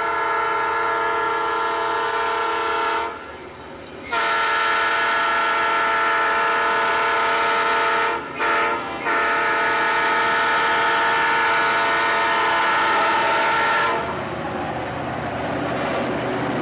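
Diesel locomotive's multi-tone air horn sounding the grade-crossing signal: two long blasts, a short one and a final long one. When the horn stops near the end, the noise of the approaching train carries on.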